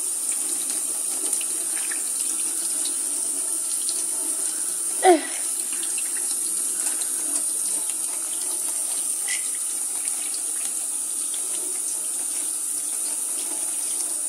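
Kitchen tap running steadily, the stream splashing over a hand and a bathing conure into a stainless steel sink. One short falling squeak about five seconds in.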